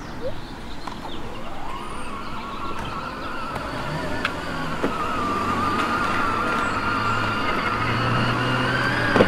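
A child's battery-powered ride-on toy car with its electric motor whining as it drives. The whine rises in pitch about two seconds in, then holds steady, and grows louder toward the end.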